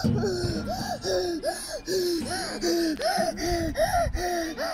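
A young child laughing in a long run of breathy, rhythmic laughs, about two to three a second.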